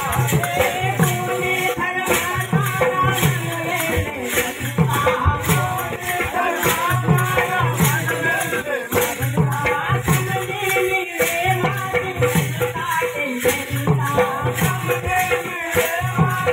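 Gondi Dhemsa folk dance music: a steady, repeating drum beat with rattling percussion and a wavering melody line above it.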